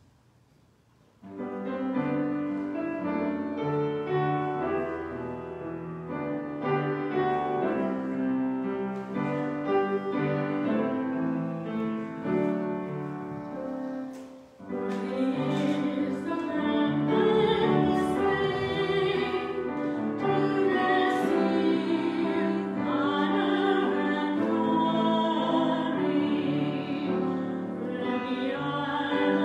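Offertory hymn: a piano introduction starts about a second in, then after a brief pause about halfway through a woman's solo singing voice comes in over the piano.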